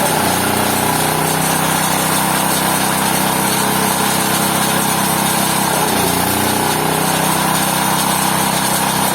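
GT-14S pulping machine running steadily with a loud, engine-like drone. Its pitch sags briefly at the very start and again about six seconds in, then recovers.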